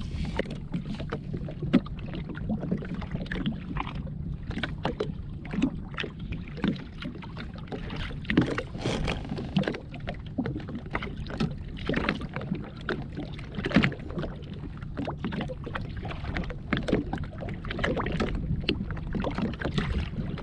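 Small waves slapping against the hull of a jetski, irregular sharp slaps over a steady low hum.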